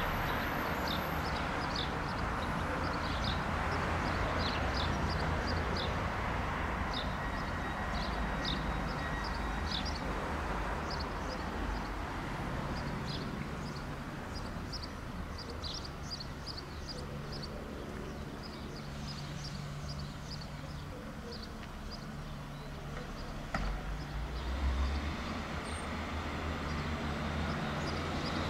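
Class 150 diesel multiple unit standing at the platform with its underfloor diesel engines idling, a steady low hum, while small birds chirp repeatedly. A brief low swell of engine noise comes about three-quarters of the way through.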